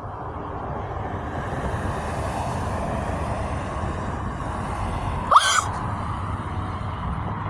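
Steady outdoor rumble and hiss of passing traffic, with one short, rising, high-pitched vocal sound, like a quick gasp, about five seconds in.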